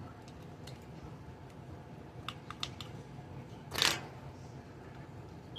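Small clicks and taps from handling AA/AAA batteries and a plastic toy's battery compartment, scattered irregularly, with one louder brief rustle about four seconds in.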